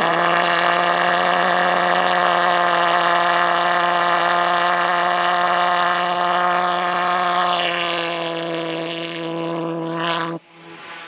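Model aircraft pulse jet engine running with a loud, steady buzzing drone on one low pitch, then cutting off suddenly near the end as the model hits the ground.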